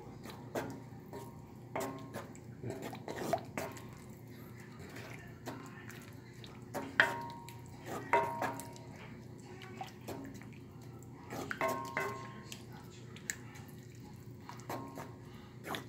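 Wooden spoon stirring a thick tomato sauce as it reduces in a cast iron skillet: irregular knocks and scrapes of the spoon against the pan, some with a short ring, every second or so, over a faint steady low hum.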